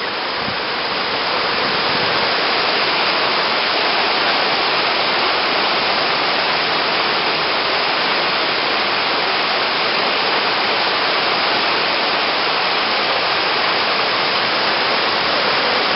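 Floodwater rushing steadily in a creek swollen by storm rain.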